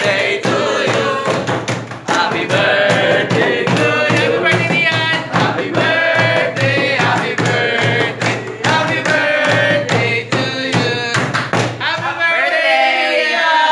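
Singing over a steady, fast beat, which stops about twelve seconds in and gives way to voices talking.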